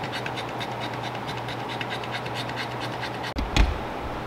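Quick, even soft ticking, about six a second, from a Boston terrier mother and her newborn puppy nursing at her belly. Near the end the ticking breaks off and there is one dull thump.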